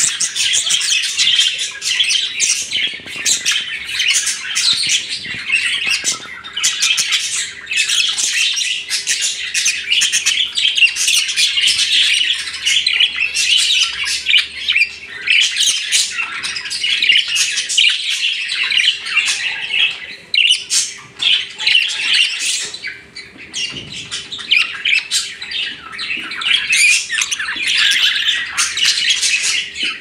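A group of caged budgerigars chattering and warbling without pause, a dense run of high chirps and squawks.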